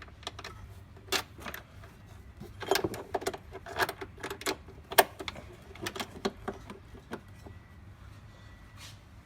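Small metal parts clicking and clinking: bolts, washers and a steel mounting plate being handled and fitted by hand. The clicks come irregularly, the loudest about halfway through, and die away a couple of seconds before the end.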